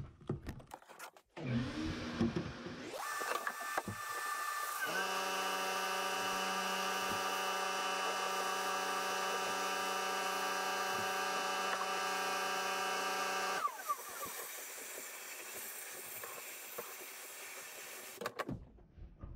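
Silica-sand blast cabinet in use with a vacuum on its exhaust. A few handling knocks come first, then a steady hiss. From about five seconds in, a louder, steady droning blast tone runs for about nine seconds and stops; after it the hiss goes on more quietly and cuts off shortly before the end.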